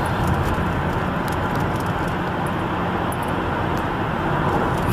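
Steady engine hum and tyre noise of a car cruising along a multi-lane road, heard from inside the cabin.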